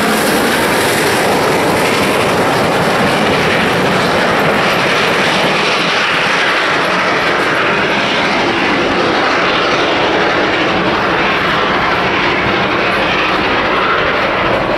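Steady loud rushing roar from a steam train, with no clear beat, the hiss at the top thinning out after about six seconds.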